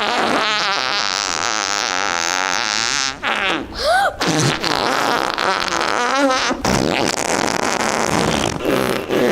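Loud, buzzy fart-like noises that wobble in pitch, in a few long runs with short breaks between them.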